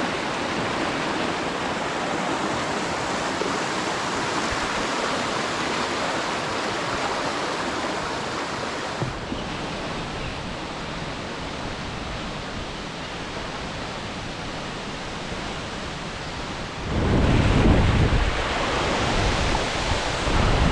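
Steady rushing roar of a large waterfall, the Wli falls, with no break. About three-quarters of the way through, a heavy low rumble comes in on top and the sound grows louder.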